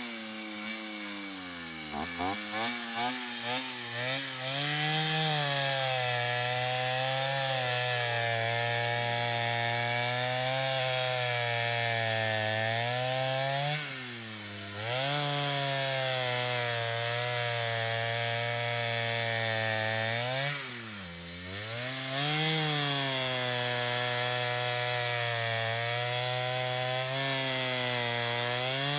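Chainsaw running and cutting wood. The engine holds a steady high pitch, wavers quickly near the start, and sags sharply a few times as it is loaded, then picks back up.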